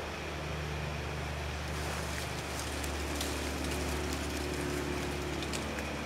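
Steady low outdoor rumble, with faint crackling rustles and small clicks from about two seconds in until near the end.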